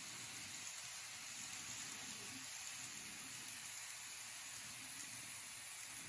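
Faint steady hiss with a weak low rumble underneath.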